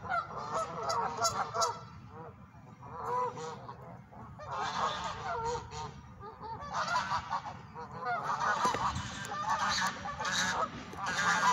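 Geese honking in several bouts of rapid calls, with short pauses between them.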